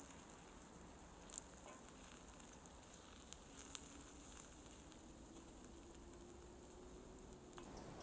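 Faint sizzling of onions frying in butter in a steel pan over a campfire, with a few faint clicks about a second in and again near the middle.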